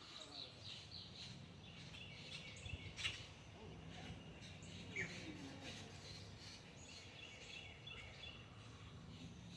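Faint, scattered bird chirps over a low, steady background hum, with a sharp click about three seconds in.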